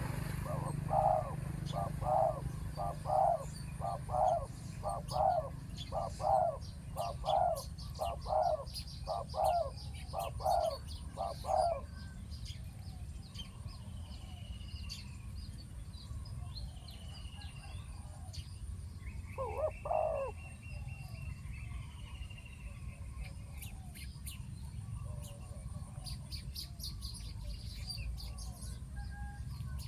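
Spotted dove cooing: a long run of evenly spaced coos, about one and a half a second for the first twelve seconds, then a double coo about twenty seconds in. Small birds chirp faintly in between.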